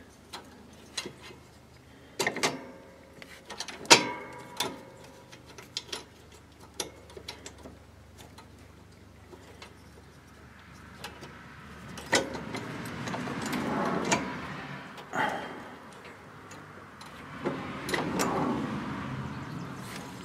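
Light metallic clicks and taps of bolts being handled and threaded by hand into a lawn tractor's pulley bracket, with a louder knock about four seconds in. Two longer stretches of scraping and rubbing follow in the second half.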